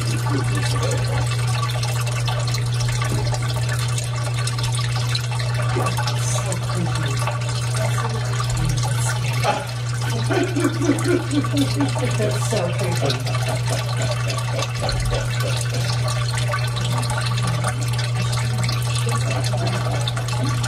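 A steady rushing noise over a constant low hum, with a faint voice about halfway through.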